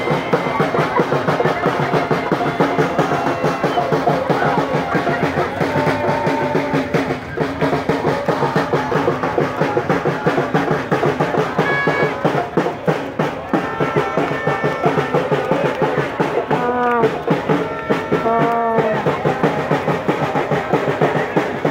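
A large crowd of football supporters singing and chanting together over beating drums that keep a steady, fast rhythm.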